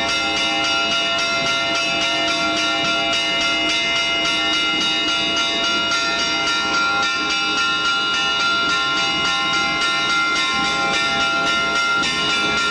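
Church bells ringing a fast, continuous festive peal, the strikes coming several times a second over steady, overlapping bell tones.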